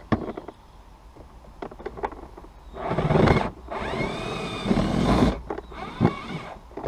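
An 8 mm socket screwdriver backing out trim-panel screws: a few sharp clicks, then whirring in about three stretches starting about three seconds in.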